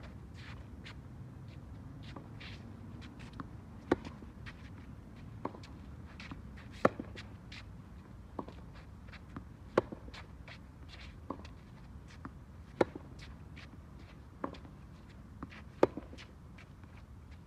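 Tennis rally on a hard court: a racket strikes the ball sharply about every three seconds, and between these come fainter hits and bounces from the far end, with light shoe steps on the court surface.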